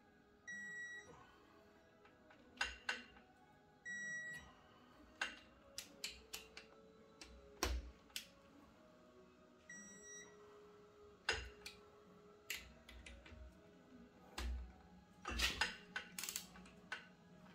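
Hand tools and steel engine parts clicking and knocking irregularly during assembly of pistons and connecting rods, with three short electronic beeps: near the start, about four seconds in and about ten seconds in.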